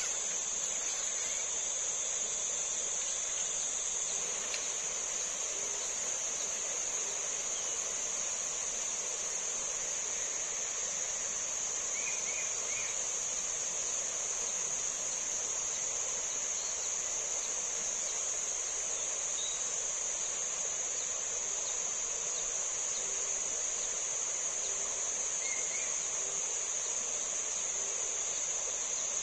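Steady, high-pitched insect chorus that holds unbroken throughout, over a fainter even hiss.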